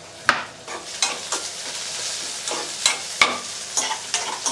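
Chopped onions and garlic sizzling in oil in an aluminium kadai, with a steady hiss and about half a dozen sharp knocks and clinks spread through it.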